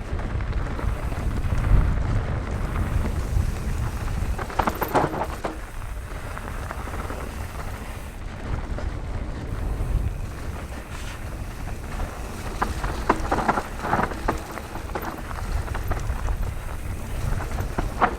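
Nukeproof Mega 290c enduro mountain bike descending a rough trail: a steady rumble of wind on the microphone and tyres on dirt, broken by bursts of clattering from the bike over rocks, about 5 seconds in and again from about 12 to 15 seconds in.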